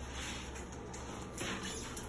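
Soft rustling and handling noises as hands and the phone move around, with a louder rustle about a second and a half in.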